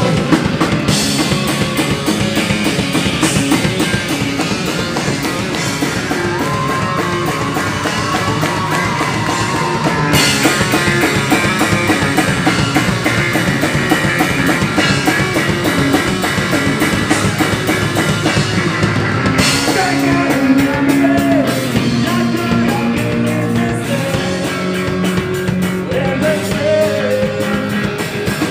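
Pop punk band playing loud rock: electric guitars, bass guitar and drum kit, with a sung vocal line at times.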